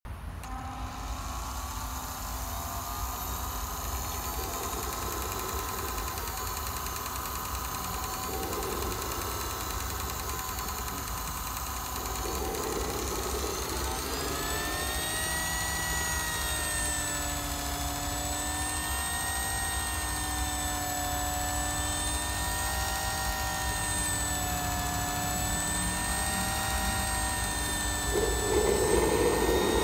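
Kingtech K45TP model turbine turboprop engine running: a steady whine with several tones that glides up in pitch about halfway through as the turbine spools up, then holds with a slight waver. A louder rushing noise joins near the end.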